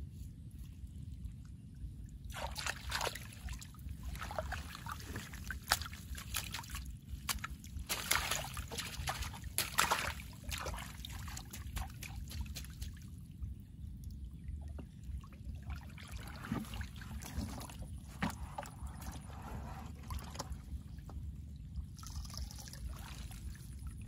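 Water splashing and sloshing as a mesh fish net is pulled and shaken in a shallow, flowing channel, over a steady low rumble. The splashing is busiest from about two to eleven seconds in, then thins out.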